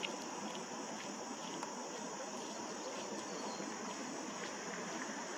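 Steady high-pitched insect chirring, like crickets, over a constant background hiss, with no clear birdsong phrase standing out.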